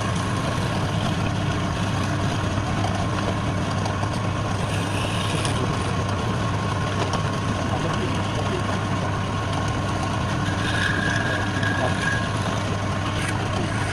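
Wood lathe running steadily with a low motor hum, and a brief higher whine about eleven seconds in.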